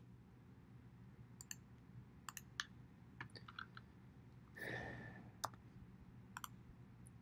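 Faint clicks of a computer mouse, scattered singly and in quick pairs, over a low steady hum. There is a brief soft noise a little past the middle.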